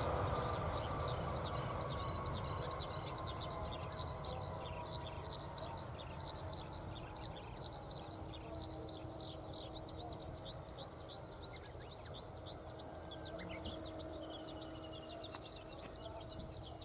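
Boeing 787-8 jet engines running at low power as the airliner rolls away down the runway: the sound fades steadily and a whine slowly sinks in pitch, leaving a faint steady hum. Over it, a bird chirps over and over in quick, high, arching notes, a few a second.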